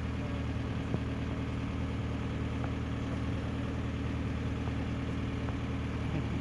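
Car engine idling steadily: a low, even hum.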